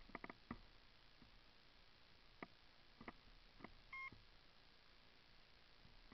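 Near silence, broken by a few faint clicks and one short electronic beep about four seconds in.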